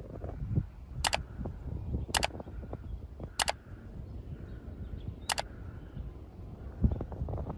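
Four sharp mouse-click sound effects from a subscribe-button animation, one to two seconds apart, over a steady low rumble. A louder low thump comes near the end.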